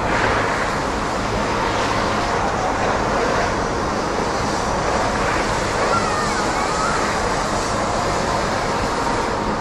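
Snowboard sliding and scraping over the snow, a steady hiss with no breaks.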